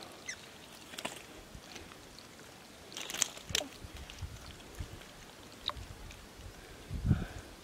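Scattered splashes and knocks in shallow water, with a cluster about three seconds in and a low, heavier slosh or thump near the end.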